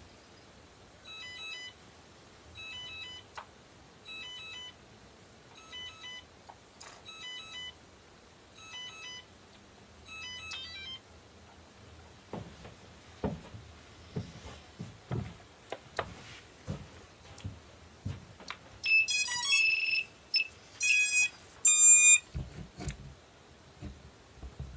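Electronic beeping from an FPV quadcopter's electronics. A short cluster of beeps repeats about every second and a half for the first ten seconds. Then come some knocks and handling noise, and then three louder beep sequences near the end.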